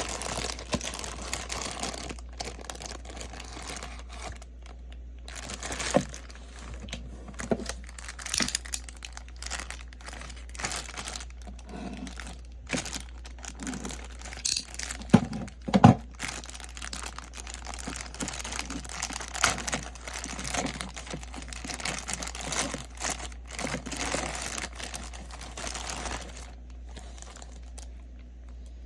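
Packaging being handled while a figure is unboxed: irregular crinkling and rustling with some tearing, and two sharp clicks a little past the middle. It goes quieter near the end.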